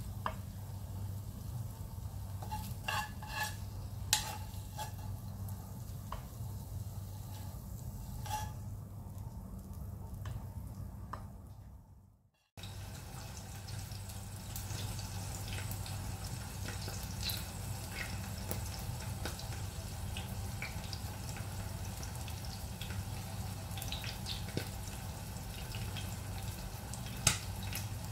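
Kitchen room tone: a steady low hum with a few light clicks of food and utensil against a ceramic plate as the omelet is plated. The sound drops out briefly about halfway through.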